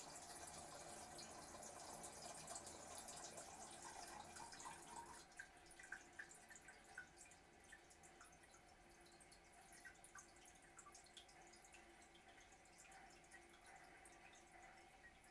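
Toilet after a flush, faintly heard: a steady rush of running water that stops about five seconds in, then scattered drips and trickles.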